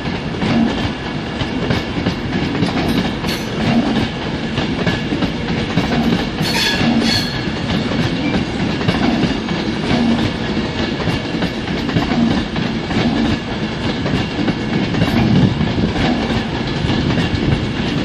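Class 390 Pendolino electric train pulling out of the station, its wheels clattering rhythmically over rail joints and points about once a second. A brief high squeal comes about six to seven seconds in.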